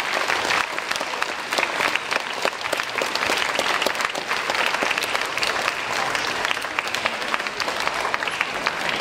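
Audience of middle-school students applauding: a dense, steady patter of many hands clapping.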